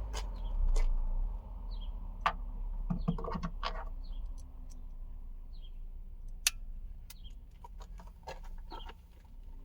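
Scattered light clicks and taps from handling the plastic hatch trim panel and its last screw, with a small bird's short high chirps repeating every second or so.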